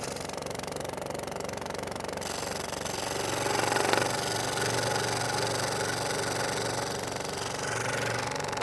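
Electric scroll saw running while its fine blade strokes rapidly up and down, cutting through a wooden board along a puzzle pattern: a fast, even mechanical chatter over a steady low motor hum.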